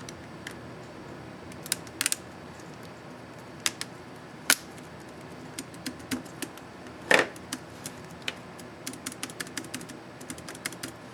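Keys on an ASUS X551C laptop keyboard clicking as they are pressed: scattered single clicks, a heavier, longer click about seven seconds in, then a quicker run of taps near the end.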